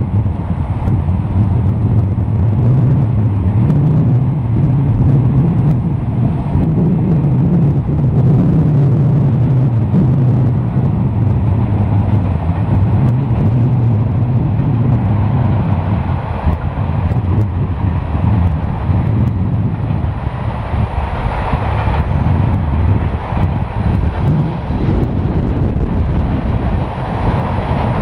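Long CSX freight train of autoracks and boxcars rolling past, a steady low rumble of wheels on the rails.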